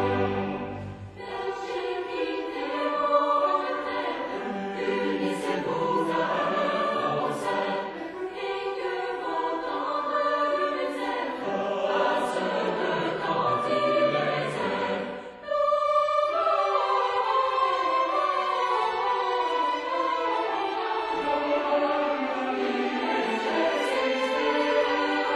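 Mixed choir singing a Christmas carol in parts, accompanied by a string orchestra. The singing breaks briefly about a second in and again about halfway through, between phrases.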